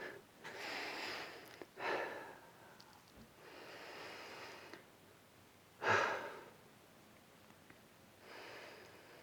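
A person's breathing: several audible breaths in and out through the nose and mouth, about five in all, with a sharp, loud one about six seconds in.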